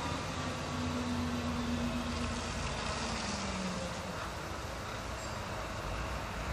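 Diesel engine and tyres of a TPz Fuchs 6x6 armoured transport vehicle driving away along the road, a steady low rumble. Its engine note holds and then drops in pitch about three seconds in, and the sound eases a little toward the end.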